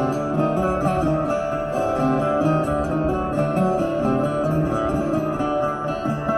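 Lap-held plucked string instrument played by a street busker, picking out a continuous melody of ringing notes.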